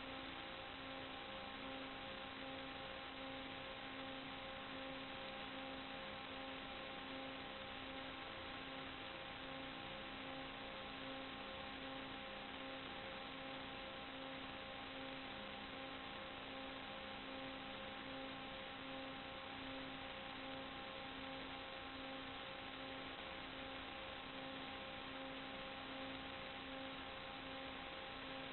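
Steady static hiss with a faint, even hum of a few steady tones, the lowest pulsing about twice a second, unchanged throughout.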